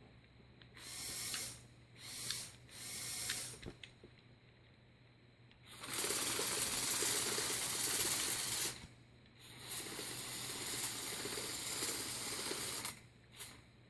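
LEGO Technic XL motors driving a tracked loader's plastic gears and tracks: three short runs, then two longer runs of gear and track rattle. It is powered by an AA battery pack at just under 9 volts and can't turn.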